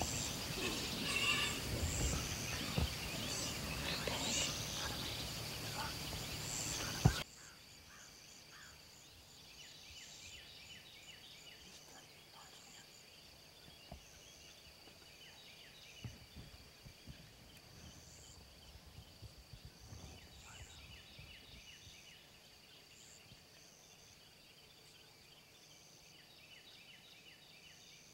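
Field ambience of insects buzzing at a steady high pitch with repeated short high chirps. For the first seven seconds this sits under rustling and small knocks, then the sound drops sharply at a cut.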